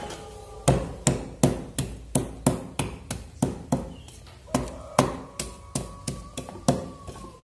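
Pestle pounding fresh turmeric, ginger and garlic in a mortar: a steady run of sharp knocks, about three a second, with a brief pause midway. It stops suddenly near the end.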